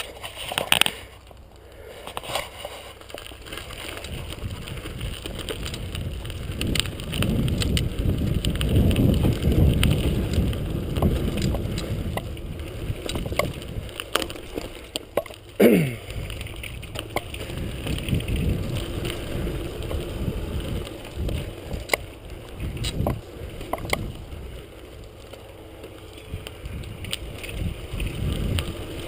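Wind buffeting the microphone of a camera on a moving bicycle, swelling and easing, with short rattles and knocks from the bike. A brief falling squeal about halfway through.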